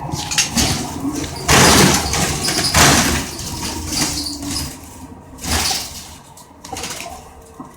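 A city transit bus's doors opening at a stop, with two loud hisses of air a little over a second apart, followed by softer knocks and rattles.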